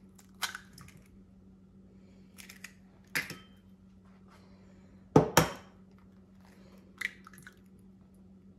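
Raw eggs being tapped and cracked open one after another over a stainless steel mixing bowl: a handful of short sharp cracks and clicks spread out, the loudest about five seconds in.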